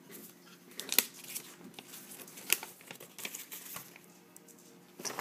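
Paper rustling and crinkling as the camera's instruction sheets are pulled out of the box and handled, with irregular crackles, the sharpest about a second in.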